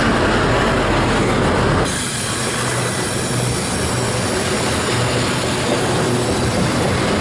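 Canadian Pacific freight train's cars rolling past on the track: steady rail and wheel noise. The sound changes abruptly about two seconds in, the low rumble dropping away.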